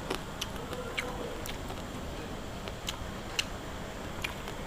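Scattered sharp ticks and clicks at irregular intervals over a steady low background noise.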